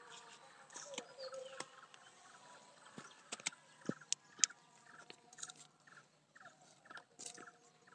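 Fresh banana stalk fibre being torn and stripped by hand: crisp snaps and tearing, loudest in a cluster about three to four and a half seconds in. Behind it, an animal gives short calls over and over, about three a second.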